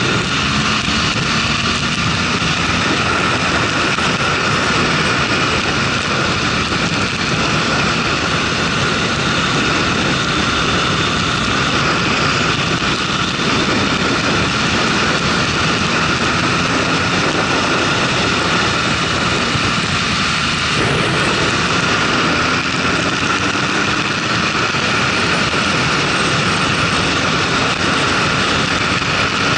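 Motorcycle riding at road speed, heard from the bike: a steady rush of wind noise over the engine's drone, the engine pitch rising a few times as the bike accelerates.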